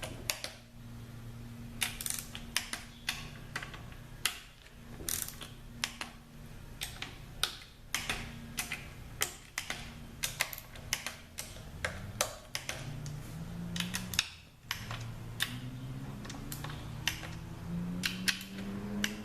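Ratchet torque wrench clicking as the T40 valve-body bolts of a ZF 6HP26 automatic transmission are tightened to about 90–95 inch-pounds: a run of sharp, irregular clicks over a low hum.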